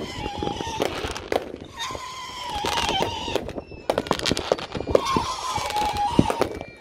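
Many consumer fireworks going off at once: rapid pops, bangs and crackling. A wavering high tone is held for about a second several times.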